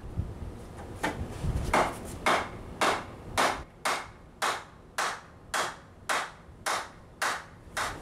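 Repeated sharp knocks, about two a second, on a block of wood held on top of a bicycle fork's steerer tube, driving the fork down out of the frame's head tube.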